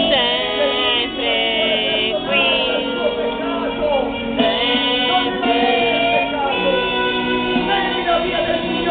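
Worship song: a voice singing long held notes that glide into each phrase, over guitar accompaniment.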